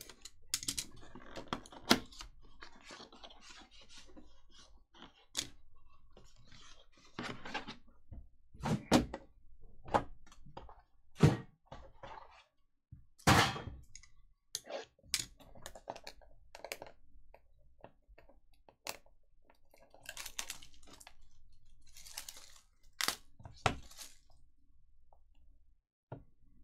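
Cardboard boxes and a tin of hockey card packaging being opened and handled: a string of irregular thunks and clicks with crunching and rustling between them.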